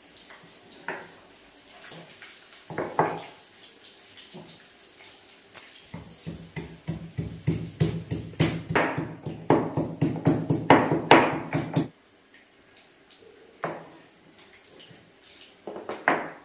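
Stone mortar and pestle pounding: a run of rapid, heavy strikes starting about six seconds in and stopping abruptly about twelve seconds in. A few scattered single knocks come before and after.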